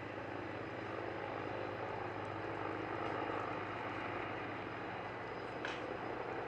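T129 ATAK attack helicopter in display flight, its rotors and twin turboshaft engines making a steady sound.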